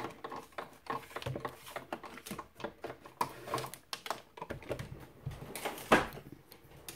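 Hand-cranked die-cutting machine being turned to emboss, the plate stack squeezing through the rollers with irregular clicks and creaks, followed by the plates being handled; a sharper knock about six seconds in.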